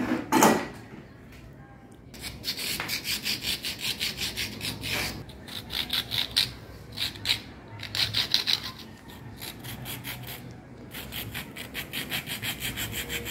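Hand-held hacksaw blade sawing a slot into a plastic soft-drink bottle piece in quick scraping strokes, about four a second, in several runs with short pauses. A single knock sounds just after the start.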